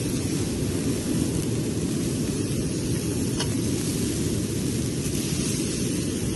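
Steady wind rumble buffeting the phone's microphone, with one faint click a little over three seconds in.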